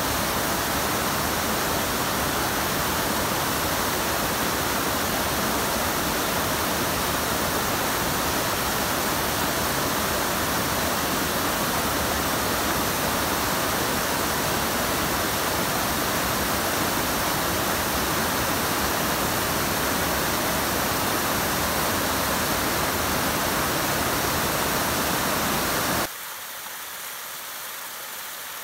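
Rushing water of a small creek waterfall and cascade, a steady, loud wash of noise that drops suddenly to a quieter level near the end.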